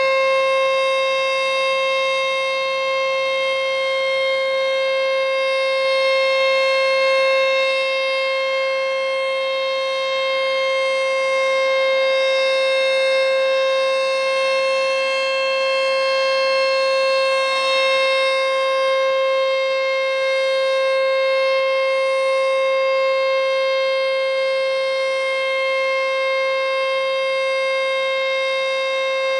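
American Signal T-121 single-tone rotating outdoor warning siren sounding its steady alert signal: one continuous high tone that holds its pitch, the loudness swelling and easing slightly.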